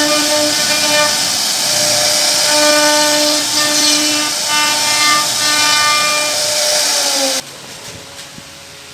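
CNC router spindle running at high speed, its bit cutting a relief pattern into wood: a steady high whine over a loud cutting hiss. It cuts off abruptly about seven seconds in, leaving a faint hiss.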